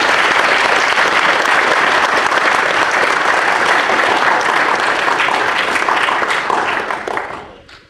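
Audience applauding, loud and close, with hands clapping right by the microphone. It dies away near the end.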